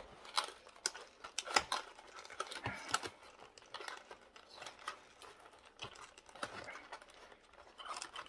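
Small cardboard box being handled and its end flaps worked open: irregular taps, scrapes and rustles of cardboard.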